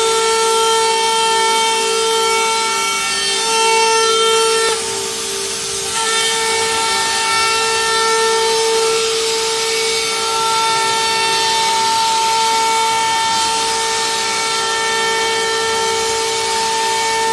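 Multi-spindle CNC router cutting round holes in an aluminum composite panel: a loud, steady high whine from the spindles over a hiss of cutting noise. The whine drops out briefly about five seconds in, then comes back.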